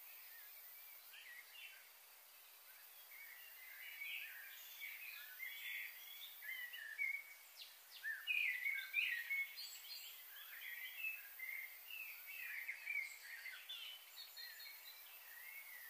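Small birds chirping and calling: a busy run of short, high chirps that picks up a few seconds in and is thickest around the middle, over a faint steady hiss.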